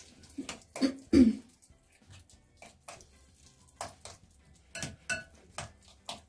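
A spoon mixing guacamole in a bowl, giving a scatter of light clinks and scrapes against the bowl through the second half. Near the start come a couple of short throat-clearing noises, the loudest sounds here.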